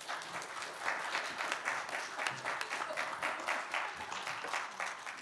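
Congregation applauding: many hands clapping in a dense patter that starts suddenly and thins out near the end.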